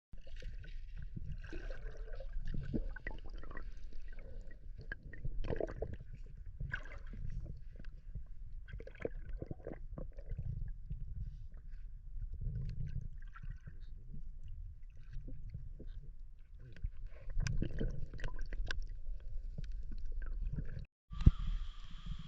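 Water sloshing and splashing in irregular bursts, with scattered short knocks and clicks, as someone moves about in shallow water.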